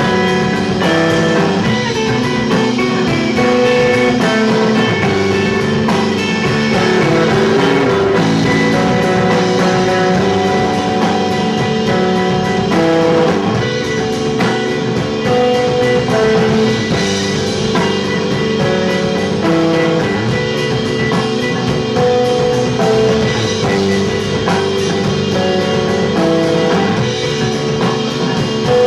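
A live rock trio of electric guitar, bass guitar and drum kit plays a song with no vocals. A picked guitar figure keeps repeating over a steady bass and drums.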